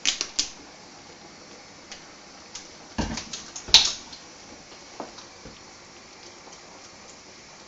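Plastic lemon-juice squeeze bottle being worked open, its cap opened by mouth: a few sharp clicks at the start, then a cluster of clicks and a crackle of plastic about three seconds in, with a few light ticks later.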